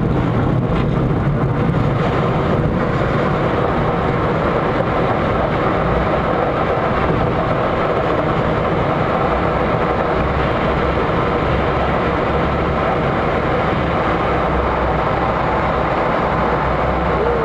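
Steady rumble and rushing air noise inside the cockpit of a Schweizer 2-33 training glider during its aerotow takeoff run across a grass strip.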